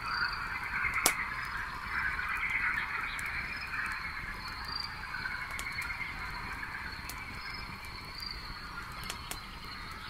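Campfire crackling with a few sharp pops, the loudest about a second in, over a steady night chorus of frogs.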